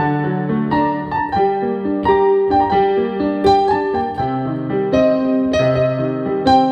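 Instrumental keyboard music with a piano sound: a melody of notes changing every half second or so over held low bass notes.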